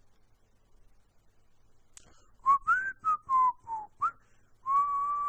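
Someone whistling a short tune: about six quick notes that rise and fall, then one longer held note near the end.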